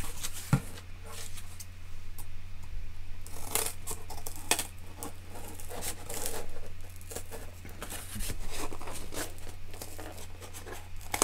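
A sheet of corrugated cardboard being handled and shifted: irregular scraping and rustling with a few knocks, a sharp one about half a second in.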